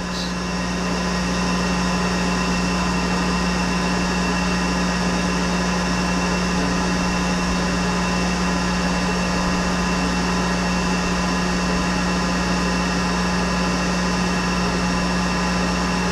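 Monarch 10EE toolroom lathe running steadily at about 2,000 rpm on a light finish cut in leaded steel: an even mechanical hum with several steady tones over it, a little louder after the first second.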